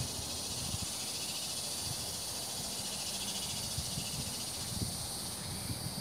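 Steady high hiss of outdoor riverside ambience, with light wind rumble on the microphone now and then.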